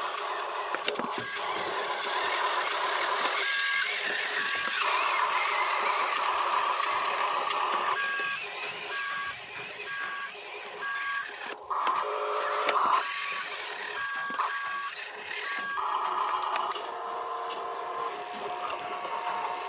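Toy RC construction truck's reversing beeper sounding a two-note electronic beep, about twice a second, in several spells, over a steady whirring hiss from the toy's running motors and gears.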